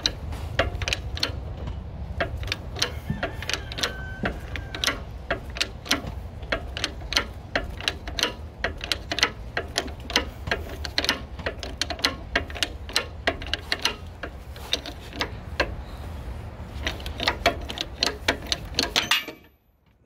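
Hydraulic bottle-jack shop press being worked, a run of sharp clicks a few times a second as it forces the remains of the old wheel bearing out of the steering knuckle. The clicking cuts off suddenly about a second before the end.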